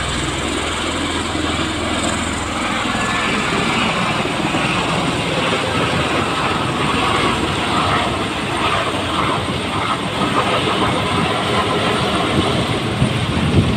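Bell Boeing MV-22 Osprey tiltrotor passing low overhead and climbing away, its two large proprotors and engines making a loud, steady rushing drone. A deep low rumble fades out after about two seconds.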